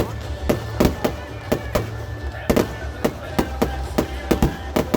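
Fireworks display: shells bursting in quick, irregular succession, about four sharp bangs a second. Music plays underneath.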